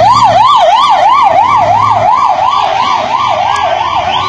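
Emergency vehicle siren wailing in a fast up-and-down yelp, about four sweeps a second, loud and close.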